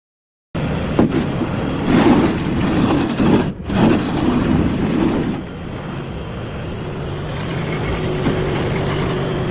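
Heavy equipment, likely a skid steer, running and working: engine noise with knocks and clatter, more uneven in the first half and steadier and a little quieter in the second. It starts about half a second in and drops out briefly about three and a half seconds in.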